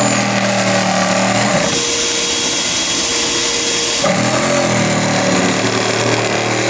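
Bee vacuum running steadily, its hose held against exposed honeycomb to suck bees out of a wall cavity; the motor's note shifts about two seconds in and again about four seconds in.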